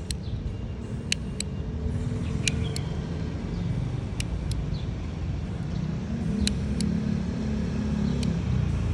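A motor vehicle's engine running close by, growing louder toward the end, with pairs of short sharp clicks every second or two.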